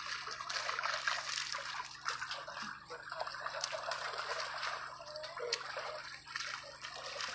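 Shallow water trickling and splashing as a fishing net is dragged across a wet tarpaulin pond bottom, with scattered small sharp splashes and clicks.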